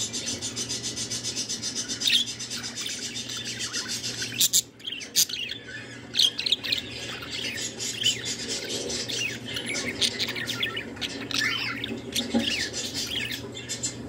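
Budgerigar chattering and warbling: a fast rattling run for the first few seconds, then a string of short chirps and whistled notes.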